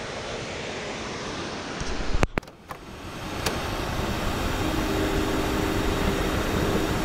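Steady rush of water flowing fast past rocks below a dam, broken by a couple of clicks and a short dropout about two seconds in, then running a little louder.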